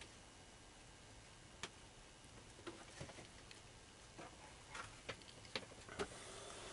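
Near silence: faint room hiss with scattered light clicks and taps.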